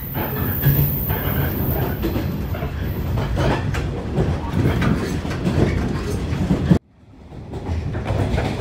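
Running noise from inside a moving local electric train: wheels clattering over the rails with a steady rumble. The sound cuts out sharply about two-thirds of the way through, then fades back in.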